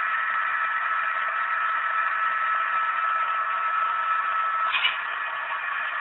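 HO scale EMD GP9 model locomotive's hard-wired MRC sound unit playing its EMD 567 diesel prime mover sound through a tiny onboard speaker, heard as a thin, hissy drone with no bass. A steady high tone runs under it and cuts off with a click near the end.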